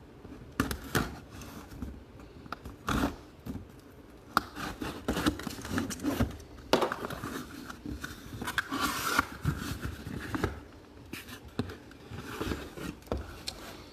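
A cardboard collectible box being opened and its packaged mini helmet pulled out and handled: irregular scraping, crinkling and tapping of cardboard and plastic.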